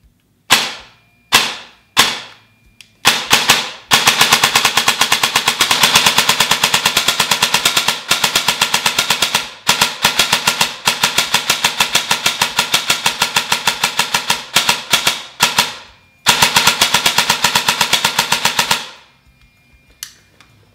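An M4 airsoft electric gun (AEG) fitted with a Gate Titan MOSFET, its gearbox cycling as it fires. It fires three single shots, then a short quick string, then long rapid full-auto strings with brief breaks about ten and sixteen seconds in.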